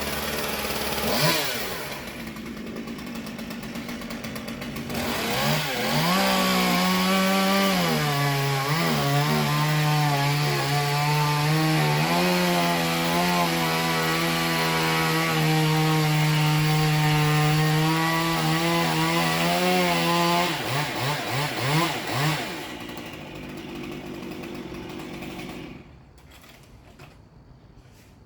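Chainsaw revving up about five seconds in and held at steady full throttle for some fifteen seconds, cutting wood during tree felling. It then blips up and down a few times and drops back to a quieter idle.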